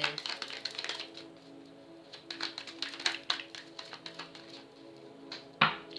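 A deck of oracle cards being shuffled by hand: runs of quick flicking clicks, with one louder snap near the end. Soft background music with sustained notes plays underneath.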